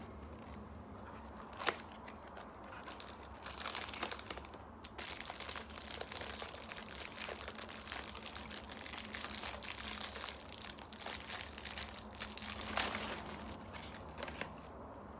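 Plastic biscuit sleeve crinkling as all-butter oat biscuits are pulled out and eaten, with crunching mixed in. There are sharp clicks about a second and a half in and again near the end, where a cardboard box lid is handled.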